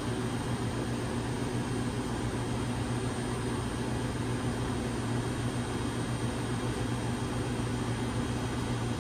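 Steady low hum and hiss of running fan machinery, unchanging throughout, with a few faint steady tones above the main hum.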